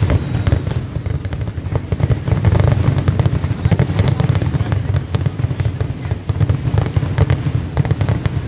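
Aerial fireworks shells bursting in quick succession: a dense, continuous run of sharp bangs over a steady low rumble, loud.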